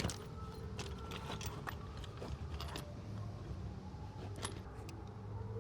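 Metal sockets from a socket set clinking and rattling as they are picked through and handled, scattered light clicks over a low steady hum.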